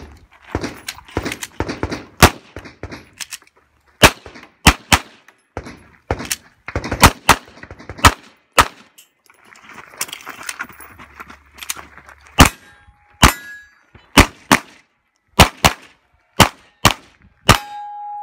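Handgun shots fired in rapid strings, often in quick pairs, with a pause of a few seconds midway while the shooter moves. A couple of the hits are followed by a short metallic ring, typical of steel targets being struck.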